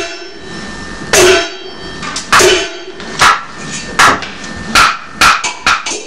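Peking opera percussion accompanying a stage fight: loud, ringing strikes about once a second, coming faster near the end, over a steady held tone from the accompanying instruments.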